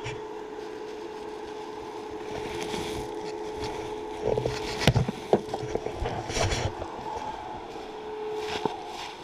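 Footsteps and brush crackling as someone walks through the woods, with a few sharper snaps and knocks about halfway through, over a steady hum.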